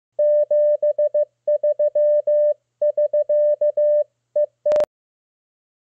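Morse code sent as a clean, steady mid-pitched tone, spelling 73 SK, the radio amateur's sign-off for "best regards, end of contact," followed by two closing dits. The last dit ends in a sharp click.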